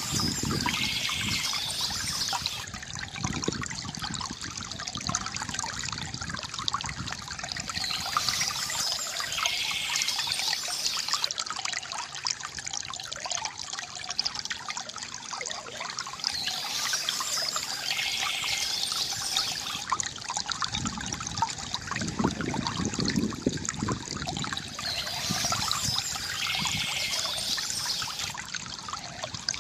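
Stream water trickling and splashing steadily. A high bird call repeats at even intervals, about every eight to nine seconds.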